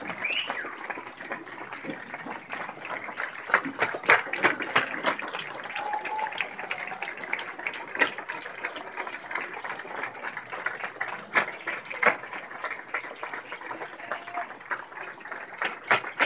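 Audience applause that has thinned to scattered hand claps, with crowd murmur underneath, in a large hall.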